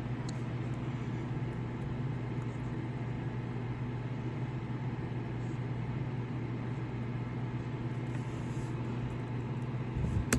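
Steady low hum, unchanging throughout, with no speech over it.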